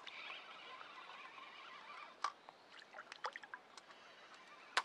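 Small, faint splashes and water ticks from a hooked roach fighting at the surface as it is drawn in toward the bank. The sharpest splash comes near the end.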